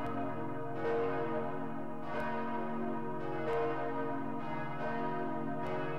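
Church bells ringing, several bells overlapping, with a fresh strike about every second and a quarter over a long sustained hum.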